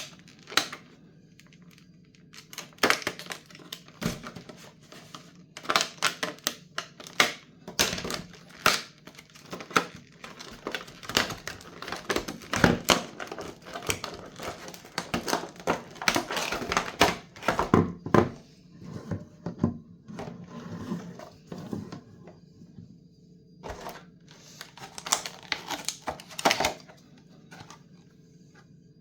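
Packaging and parts being handled by hand: irregular sharp clicks and knocks with stretches of plastic or paper crinkling.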